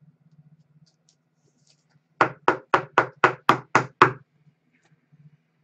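Eight quick knocks on a wooden tabletop in an even run of about four a second, like a stack of cards being tapped edge-down to square it.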